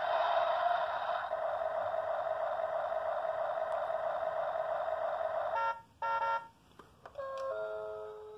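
Battery-powered toy bus playing electronic sounds through its small speaker. A long steady electronic tone runs for about five seconds, then a short beep, then a short falling run of electronic notes near the end.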